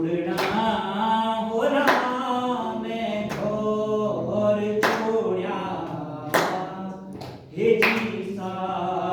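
Singing with long held notes, marked by a sharp clap or beat about every one and a half seconds.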